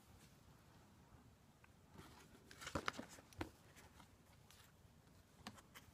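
Near silence with a few faint clicks and rustles of handling: a cluster about two and a half to three and a half seconds in, and one more near the end.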